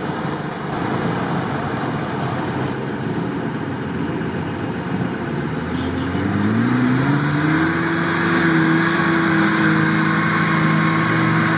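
Off-road engines working in mud, a steady noisy drone. About six seconds in, a LuAZ jeep's engine revs up, its pitch rising over about a second, then holds at high revs as the jeep pushes through reeds and bog.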